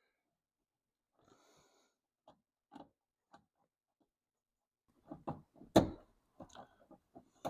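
Scattered plastic clicks, taps and rattles from hands working the keypad's wiring connector and plastic trim inside a car door, with one sharp knock about six seconds in.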